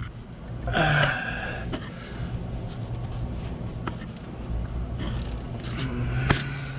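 Handling noise from working up under a truck's engine to loosen the oil filter by hand: faint rustling, a short grunt-like breath about a second in and a sharp click near the end, over a steady low hum.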